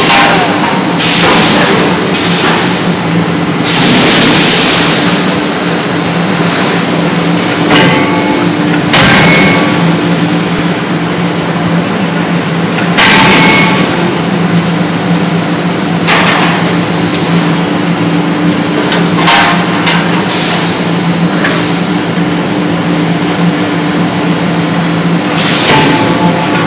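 80 kJ CNC die forging hammer striking a hot workpiece between its dies: heavy blows at irregular intervals, several close together at the start and then one every few seconds, over a continuous loud machine hum and blower noise.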